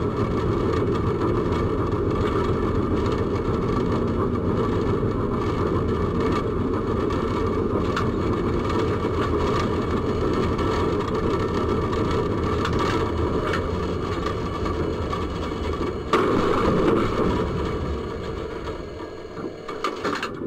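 A tram running on its track, heard from the driver's cab: a steady rumble of wheels on rails and running gear, with scattered clicks. A sudden louder burst comes about sixteen seconds in, and the noise then falls off as the tram slows.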